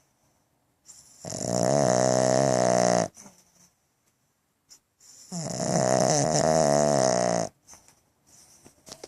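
A pug snoring: two long, loud, rasping snores about four seconds apart, each lasting about two seconds with a wavering pitch. It is the noisy breathing typical of a pug's short, flat-faced airway.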